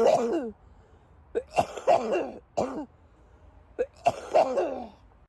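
A person coughing in three short bouts, each a quick run of harsh, voiced coughs.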